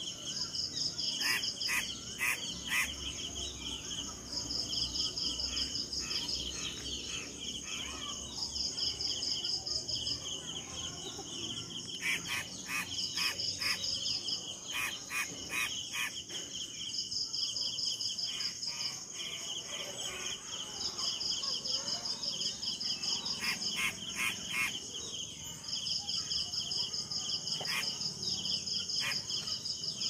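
A steady chorus of insects trilling in high, pulsing bands, some rising and falling in stretches of a second or two. Now and then there are short runs of rapid, sharp clicks, strongest about a second in, around twelve to sixteen seconds in, and near the end.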